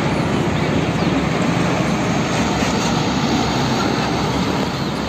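Hino fuel tanker truck's diesel engine running with road and tyre noise as it drives slowly, a steady rumble.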